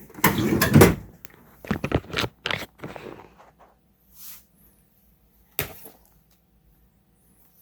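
Handling noises on a workbench: a rustle in the first second, then scattered knocks and clicks as objects are picked up and moved about, with a brief hiss partway through and one more knock later on.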